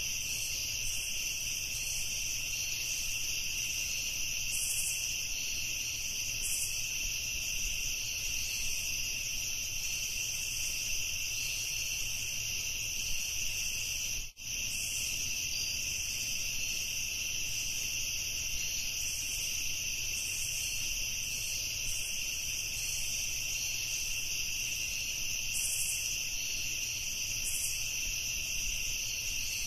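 Night insect chorus, a steady high-pitched trilling that holds unbroken except for a brief dropout about halfway through.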